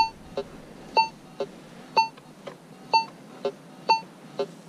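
AKA Signum MFD metal detector giving target tones as its coil is swept back and forth: a short higher beep about once a second, with a fainter, lower tone between each. It is signalling a piece of aluminum buried about 6 inches deep in black sand.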